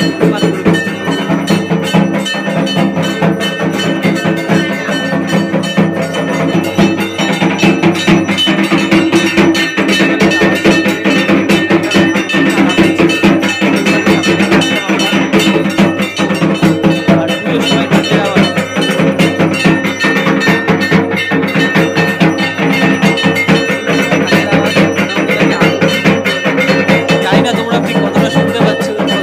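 Fast, steady rhythmic percussion music with clanging metal bells over drumming.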